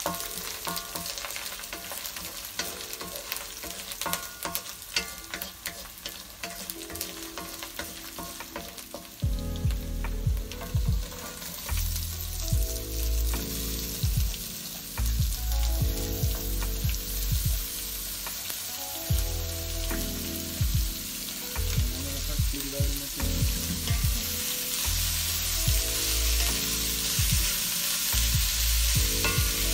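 A metal spatula scraping and clacking against a metal kadai as food sizzles in hot oil, with sliced onions tipped into the pan and stirred as they fry. Low background music comes in about nine seconds in and runs under the frying.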